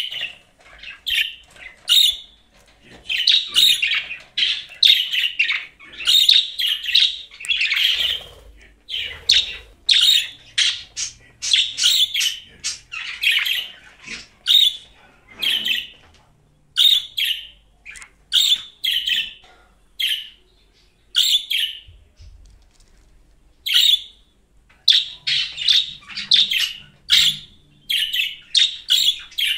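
Budgerigar chirping in quick runs of short, high calls, with brief pauses between the runs.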